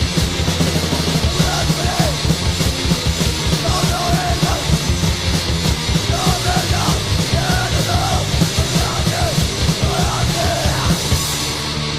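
Mid-1980s Swedish hardcore punk recording: fast, pounding drums and distorted guitar and bass under shouted vocals, which stop near the end.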